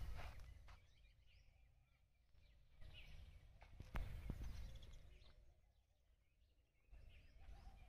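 Near silence: faint outdoor background with a few soft rustles and one sharp click about four seconds in.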